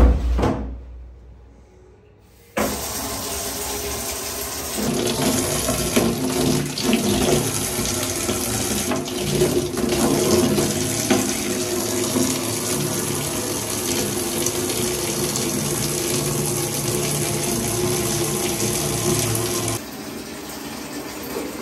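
A thump at the start, then water from a shower head pours into a plastic basin, filling it. The running water starts suddenly about two and a half seconds in, runs steadily and drops in level near the end.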